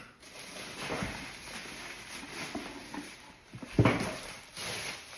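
Handling noises from unpacking a non-stick cookware set: rustling packaging and small knocks, with one sharp knock a little under four seconds in.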